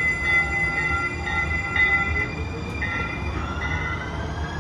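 Siemens S700 light rail train moving out along the platform: a low rumble with high steady tones that come and go, and an electric whine that rises in pitch from about three seconds in as the train gathers speed.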